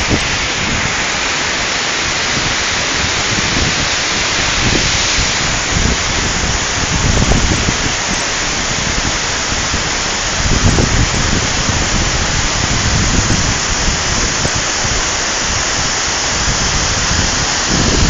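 Steady roar of a tall waterfall, an even rush of falling water, with a few brief low bumps of wind or handling on the phone microphone.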